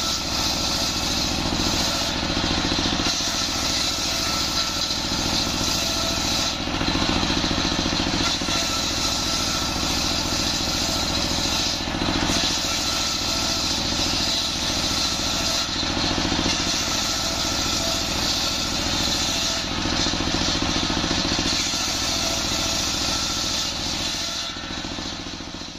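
Belt-driven circular saw bench powered by a stationary single-cylinder diesel engine, running steadily while its blade rips jackfruit-wood planks lengthwise, the cutting noise swelling and easing as each board is fed through.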